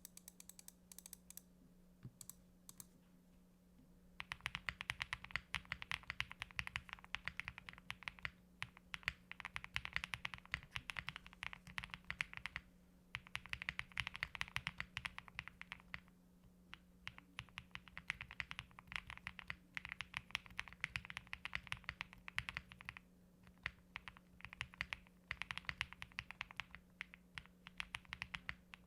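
Custom Link65 mechanical keyboard typed on quickly: lubed and filmed Infinity Key Cow Milk POM switches on a spring-mounted POM plate with GMK keycaps, giving a fast patter of keystrokes. A few scattered keystrokes come first; steady typing starts about four seconds in and runs in bursts broken by short pauses.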